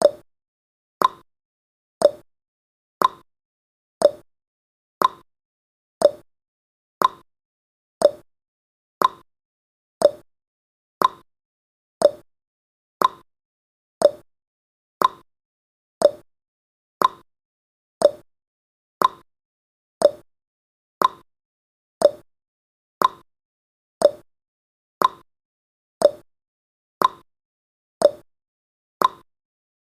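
Countdown timer tick sound effect: one short, sharp clock tick each second, alternating between a lower and a higher tick like a tick-tock.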